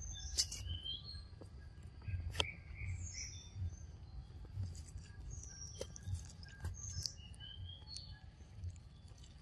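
Birds chirping in short scattered calls, some rising or falling, with sharp crackles and clicks of dry leaf litter and soft low thuds underneath.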